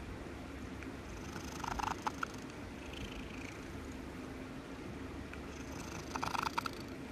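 Domestic cat purring steadily close up while being stroked on the head, a sign of contentment. Two short, louder crackly bursts break in, about two seconds in and again near the end.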